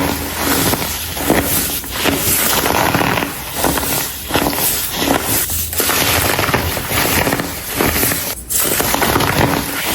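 Clumps of dried baking soda being crumbled and crushed: dense, continuous crunching and crackling that swells and eases in uneven waves, with a brief dip a little past eight seconds in.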